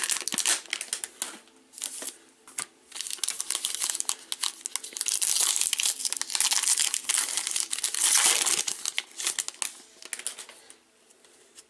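Plastic cello wrapper of a trading-card pack crinkling as it is torn open by hand. It comes in crackly bunches with short pauses, is loudest in the middle, and dies away near the end.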